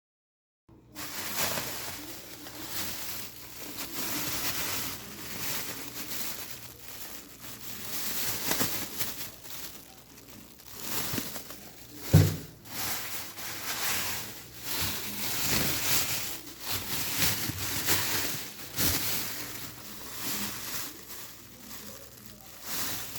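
Rustling and crinkling handling noises with scattered clicks, and one loud knock about halfway through.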